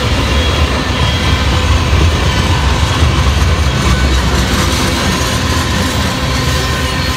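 Oil train tank cars rolling past: a steady heavy rumble of steel wheels on the rails, with faint thin squealing tones above it as the train slows to a stop.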